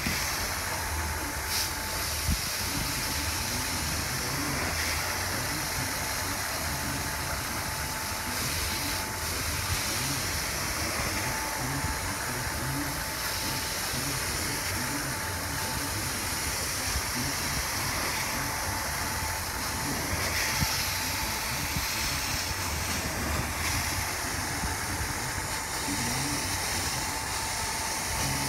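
Carpet-cleaning extraction wand spraying hot water and vacuuming it back up from the carpet: a steady rushing hiss of suction and spray with a thin whistling tone running through it.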